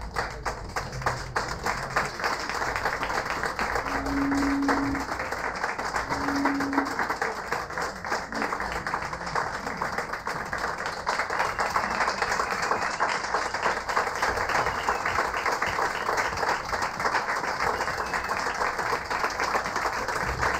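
Audience applauding steadily, with music playing underneath; two short low held notes sound about four and six seconds in.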